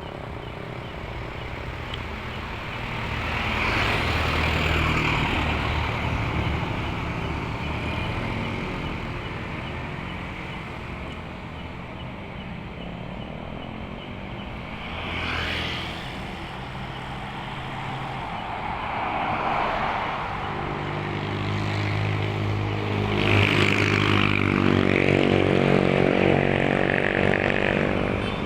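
Road traffic going by: vehicles pass one after another, with tyre noise and engines swelling and fading as each goes past. The loudest pass comes near the end, with a clear engine drone.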